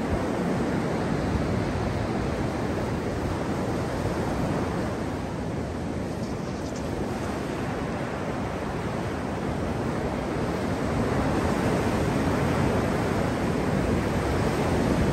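Ocean surf breaking and washing up a sandy beach: a steady rush of waves that grows a little louder near the end.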